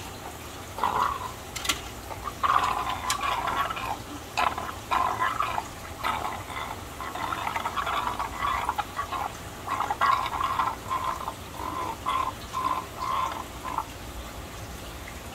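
Water gurgling and glugging in irregular bursts as fry are poured from a container into an aquarium, with a few sharp clicks in the first three seconds. The gurgling stops about a second before the end.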